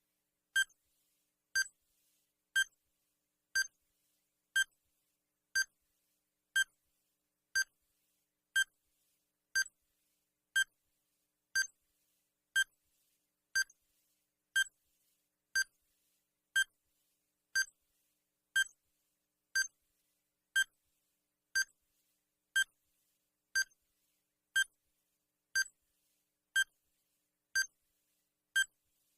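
Digital countdown timer sound effect: a short, high electronic beep exactly once a second, each one the same, counting off the seconds.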